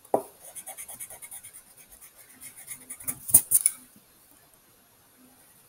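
Pencil scratching on paper in quick, short strokes while drawing a small circle. It begins with a sharp tap, grows louder about three seconds in, and stops about four seconds in.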